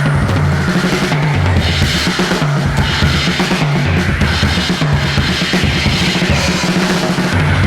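Rock music without singing: a full drum kit with bass drum and cymbals drives a bass line that steps between notes, under a dense wall of band instruments.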